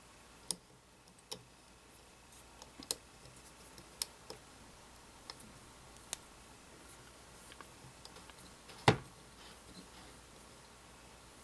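Small metal parts of KNS non-rotating trigger and hammer pins, their retainer and screw, clicking against an AR-15 lower receiver as they are fitted by hand. Scattered sharp clicks come about once a second, with one louder knock about nine seconds in.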